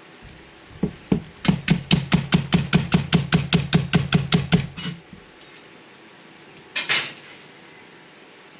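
Chinese cleaver slicing a long green onion on a plastic cutting board: a fast, even run of chops, about five a second, lasting some four seconds. After a pause there is one short swish near the end.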